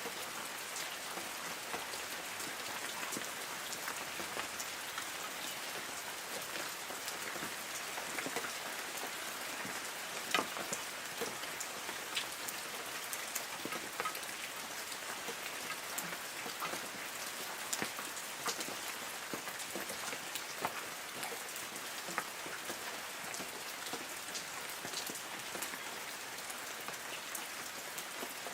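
Light rain falling on forest trees: a steady patter with many separate drops ticking on leaves.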